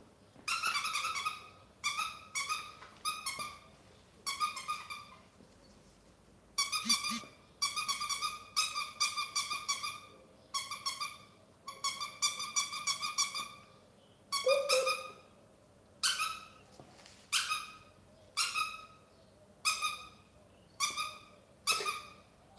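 Squeaky toy squeezed over and over, giving short high squeaks of steady pitch: quick runs of squeaks in the first half, then single squeaks about once a second.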